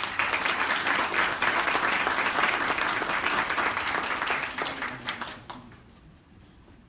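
Audience applauding, a dense crackle of many hands clapping that dies away into a few scattered claps about five seconds in.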